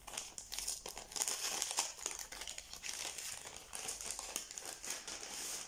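Paper packaging crinkling and rustling as a dark blue paper envelope is handled and opened, a steady run of small crackles throughout.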